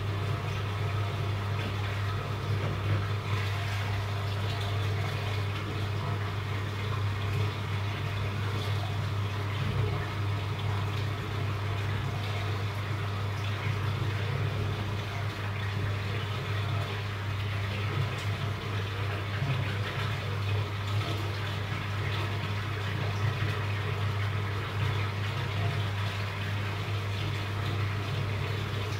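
Aquarium equipment running: a steady low hum with water trickling and bubbling, unchanging throughout.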